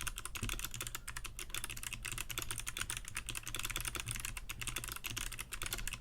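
Fast, continuous typing on a 60% mechanical keyboard with clicky Kailh Box Navy switches, TaiHao ABS keycaps and a cheap plastic case, heard from about two metres away: a dense run of sharp clacks.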